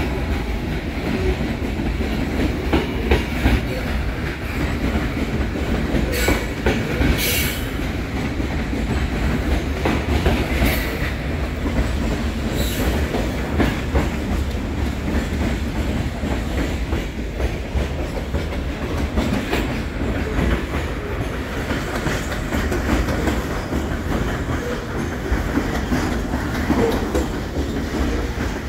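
Freight train of covered hopper cars rolling steadily past below, a continuous rumble with the clickety-clack of wheels on the rails. A few brief high-pitched squeals from the wheels come in the first half.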